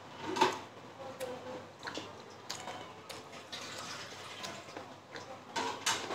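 Close-up eating sounds: a person chewing steamed momos, with scattered wet mouth clicks and lip smacks and a louder one about half a second in.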